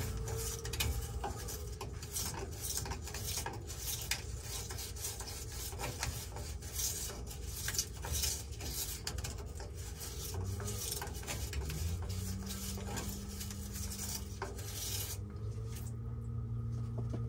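A brush scrubbing black-iron steam pipe threads clean, in quick, irregular rasping strokes that stop about fifteen seconds in.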